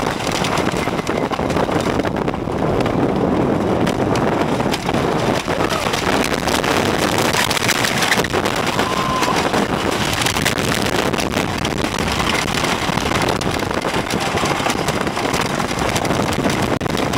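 Wooden roller coaster train running at speed over its wooden track, a steady loud rattling rumble of the wheels, with wind buffeting the microphone.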